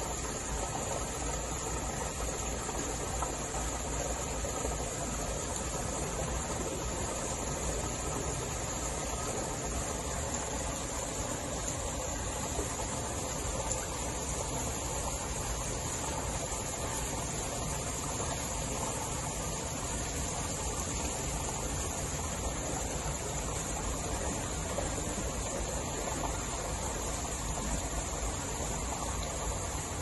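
Steady background hiss with a constant high-pitched whine.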